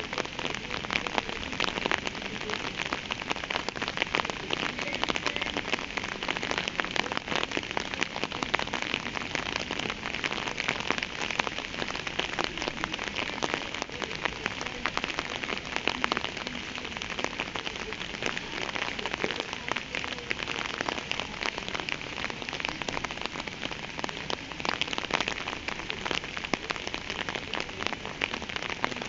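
Steady rain falling on a surface: a constant hiss with many individual drops ticking through it.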